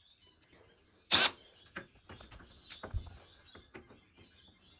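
Small clicks and knocks of hand tools and screws being handled on a TV's back cover, with one short, sharp clack about a second in and a dull knock about two seconds later.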